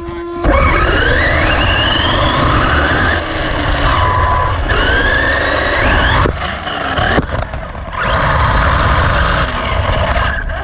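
Radio-controlled off-road buggy's motor and gears whining, rising in pitch each time it accelerates down a straight, several times over, with a steady rumble and rattle from the tyres and chassis on the dirt track.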